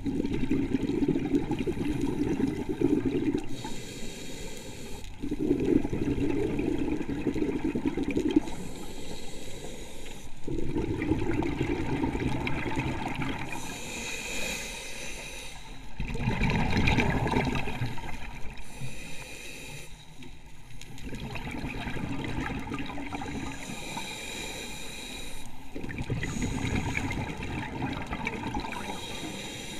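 Scuba diver breathing through a regulator underwater: a short hiss on each inhale, then a longer bubbling rush of exhaled air, repeating about every five seconds.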